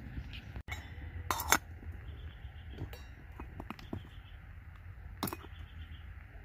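Stainless steel lid being set on a Firebox Billy camp pot, with its wire bail handle clinking against the pot: a few metallic clinks, the loudest about one and a half seconds in and another about five seconds in.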